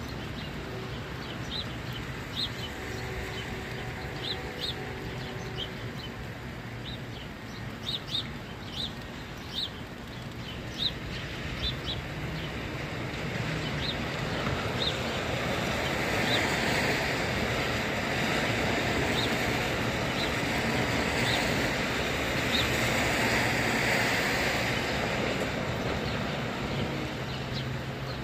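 Small birds chirping in short, high notes over a steady background hiss. From about halfway, the hiss of tyres on the wet road swells as vehicles pass, peaking twice before easing near the end.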